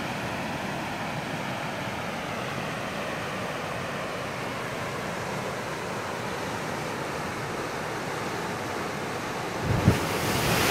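Muddy monsoon floodwater rushing steadily down a creek. Near the end a section of the undercut bank breaks off and falls into the flow with a sudden heavy thump and splash.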